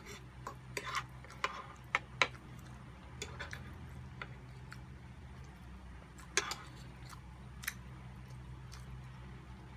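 Metal forks clicking and scraping against a serving plate as food is scooped up, in scattered sharp ticks at irregular intervals, several close together in the first couple of seconds and a louder one past the middle, over a steady low hum.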